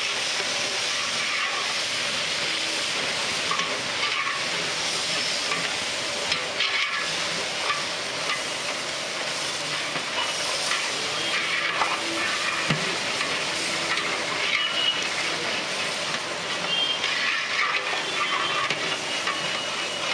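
A large pot of rice boiling in spiced water, stirred with a metal ladle: a steady hiss of boiling with irregular scrapes and knocks of the ladle against the pot.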